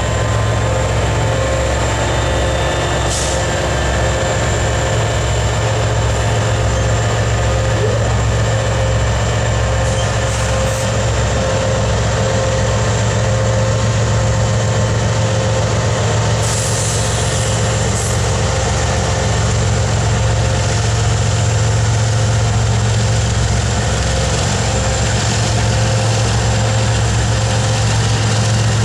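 Norfolk Southern diesel-electric freight locomotives running as they pull slowly past, a loud, steady low engine drone. A brief hiss comes about 16 seconds in.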